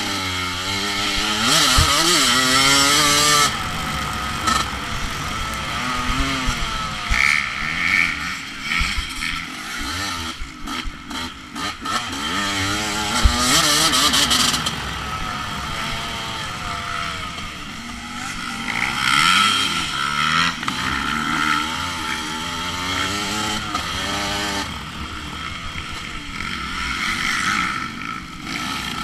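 Off-road racing motorcycle engine heard from on the bike, its pitch rising and falling over and over with throttle and gear changes. Bursts of wind hiss come and go, and a few short knocks are heard about two seconds in and again near the middle.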